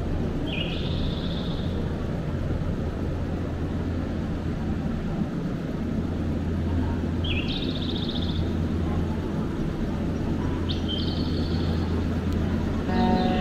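Steady low hum of an electric train standing at the platform, with three short, chirping calls that step up in pitch, about half a second in, around seven seconds and around eleven seconds.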